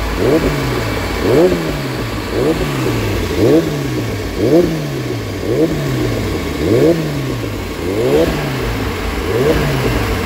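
Kawasaki ZX-10R inline-four engine through a Carbox carbon slip-on exhaust, revved in repeated throttle blips about once a second. Each blip is a quick rise in pitch and a slower fall back toward idle.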